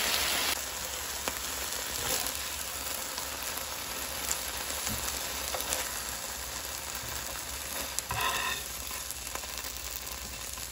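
Chicken breast fillets sizzling in a little oil in a frying pan, a steady frying hiss, with a few light clicks and a short higher-pitched sound about eight seconds in.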